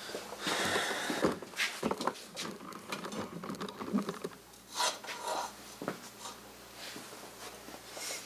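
Irregular knocks, clinks and scraping from a metal bar being clamped in a bench vise and worked by hand into an L-shaped bracket.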